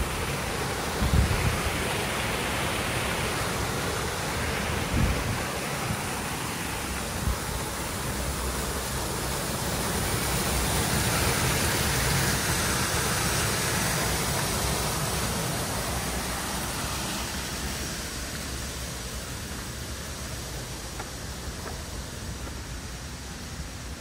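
Steady rushing noise that swells to its loudest about halfway through and then eases off, with a couple of low thumps in the first five seconds.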